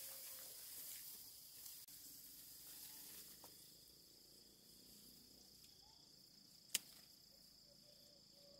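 Faint, steady high-pitched insect drone, with light rustling of grass in the first second or so and a single sharp click about seven seconds in.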